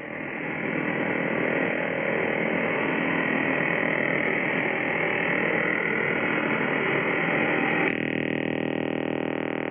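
Russian 'Container' over-the-horizon radar heard through an Icom IC-R71E shortwave receiver in LSB: a loud, rough, noisy buzz filling the receiver's audio. A switch clicks about eight seconds in as the noise blanker is toggled, and the sound turns to a steadier buzz of evenly spaced tones.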